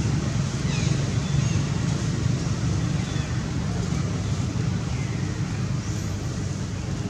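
Steady low engine rumble, like a vehicle running nearby, with a few faint short high chirps over it.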